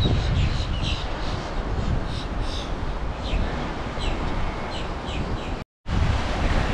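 Wind buffeting the microphone with a steady low rumble, over which a bird gives short, high calls that slide downward, repeated several times, denser at first and sparser later. The sound drops out for a moment near the end, then the wind rumble returns.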